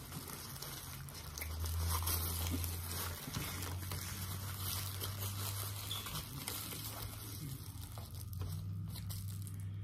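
Foil-lined paper burger wrapper crinkling and crumpling as hands fold it around a burger, a continuous crackle of many small crackles, over a low steady hum.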